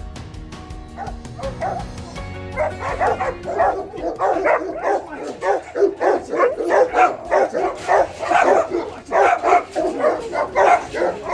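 A kennelled dog barking rapidly and without pause, several barks a second, worked up by a bite tug waved at its cage. Background music fades out as the barking starts a couple of seconds in.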